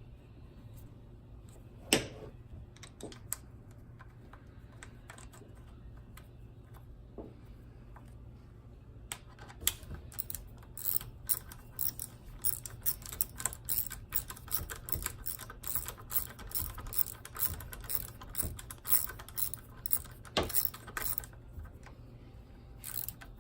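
Hand tools and engine parts clicking and clattering as a spark plug cap is refitted on a Yamaha Waverunner engine. There is a sharp knock about two seconds in, then scattered clicks. From about nine seconds in, a long run of rapid, uneven clicks starts.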